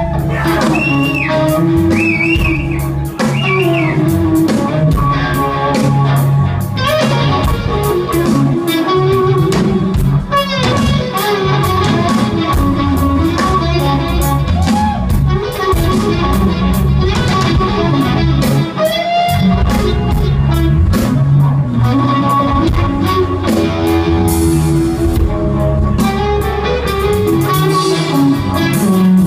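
Live rock band: electric guitar playing bent, wavering notes over drums and bass. The bends come a second or so in, again about ten seconds in and near the twenty-second mark.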